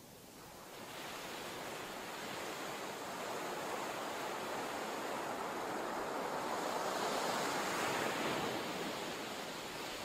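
Rushing noise like ocean surf, swelling from about a second in to a peak near the end and then easing off.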